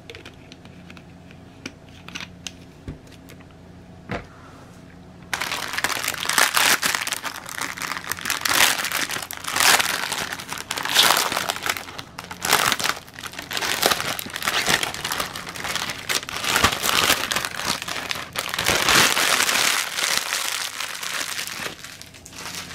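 A few faint clicks, then, starting abruptly about five seconds in, continuous crinkling in uneven waves: hands working a clear plastic sleeve around a rolled diamond painting canvas.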